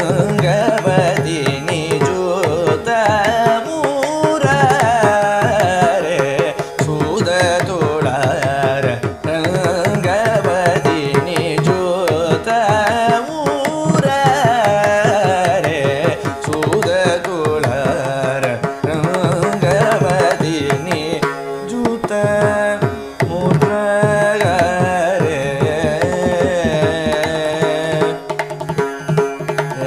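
Carnatic vocal music: a male singer sings a winding melodic passage in raga Arabhi, with mridangam strokes keeping rupaka tala under it.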